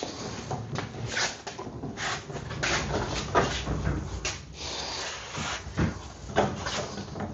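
A BMW E36 body being rolled on caster-wheel dollies across a garage floor: a low rolling rumble with a string of irregular knocks and clunks.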